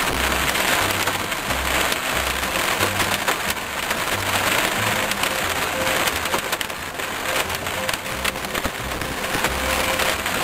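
Heavy rain pelting a moving car's windshield and body: a dense, steady hiss full of sharp drop impacts. Music with a low bass line plays underneath.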